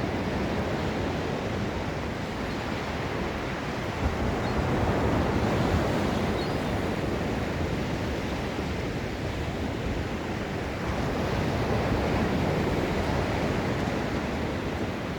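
Gulf of Mexico surf washing onto a beach: a dense, steady rush of breaking waves that swells about a third of the way in and again near the end.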